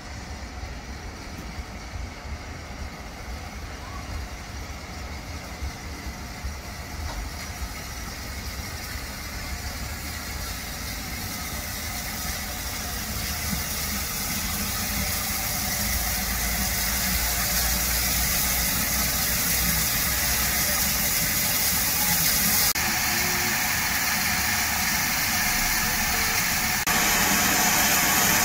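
LMS Black 5 steam locomotive 45212 drifting in alongside the platform without a beat, its low rumble and steam hiss getting steadily louder as it nears. The hiss of escaping steam jumps louder twice near the end as the engine comes right alongside.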